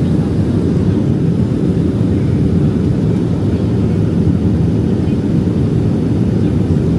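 Steady low rumble of engine and airflow noise inside the cabin of a Boeing 757-232 on its descent toward landing.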